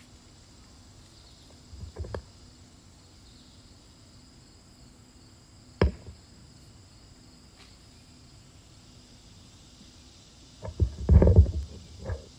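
Microphone handling noise: a soft knock about two seconds in, a sharp click near the middle, and a cluster of loud low thumps near the end as the microphone is gripped and adjusted. Under it, insects drone steadily on two high tones.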